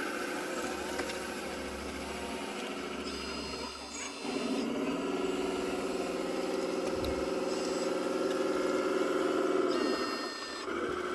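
Radio-controlled scale construction machine running its electric motors, a steady mechanical whine that gets louder about four seconds in, holds, and drops back near the end.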